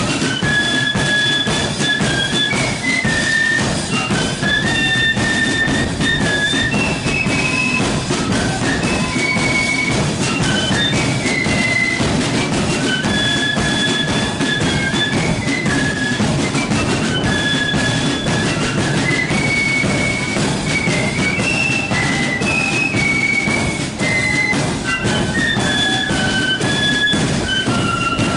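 Marching flute band playing a tune on flutes, the melody moving in held, stepping notes, with drums keeping time beneath.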